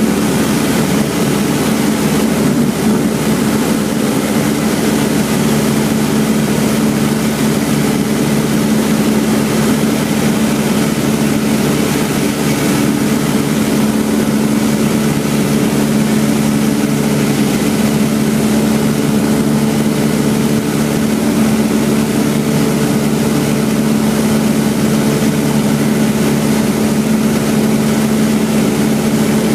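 Cessna 172's piston engine and propeller running at a steady cruise, heard from inside the cabin as a loud, unchanging drone.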